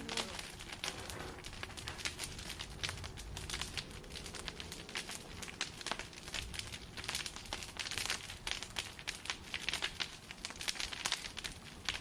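Branch fire crackling, with a constant irregular run of sharp snaps and pops.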